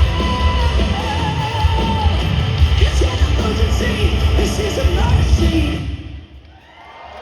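A live rock band playing loud, with heavy distorted guitar and pounding drums under a wavering lead line; the song stops about six seconds in and the sound drops away sharply.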